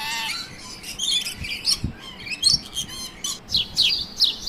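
Small birds chirping and twittering in a run of short calls, with several quick downward-sliding notes near the end.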